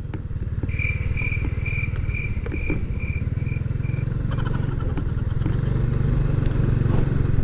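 Small underbone motorcycle (kapchai) engine running steadily at low speed, a little louder in the second half. During the first half a row of about eight short, high beeps sounds at an even pace, about two a second.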